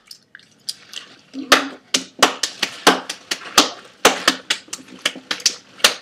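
A quick, irregular run of sharp mouth clicks and pops, about three or four a second, a few with a brief low hum.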